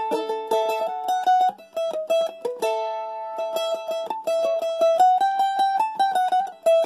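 A-style mandolin picking a melody solo, with quick repeated pick strokes on held notes.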